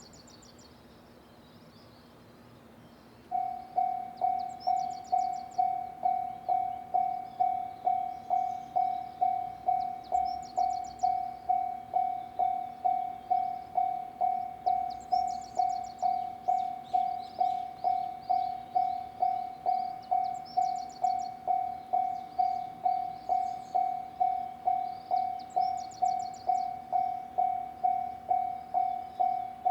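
Japanese railway level-crossing warning bell starting about three seconds in, one ringing tone struck over and over at a steady, even pace: the crossing's alarm signalling that a train is approaching.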